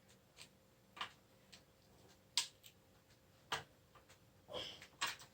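Scattered small clicks and taps, about seven at uneven intervals, from screwing D-ring hanging hardware by hand into a painting's wooden stretcher bar.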